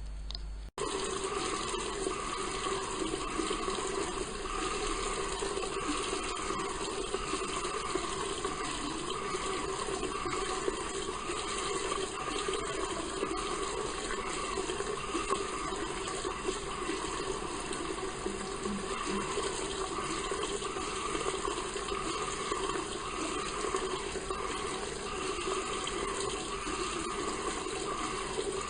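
Bathroom water tap running steadily, starting suddenly about a second in. Its flow carries a wavering, vowel-like resonance that sounds like 'wow, wow, wow'.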